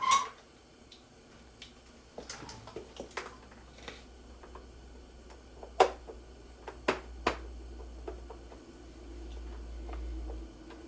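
Scattered metal clinks and knocks of hand tools being fitted to a car's front axle nut, with a few sharper knocks about six and seven seconds in. A low hum runs underneath, growing louder near the end and then stopping.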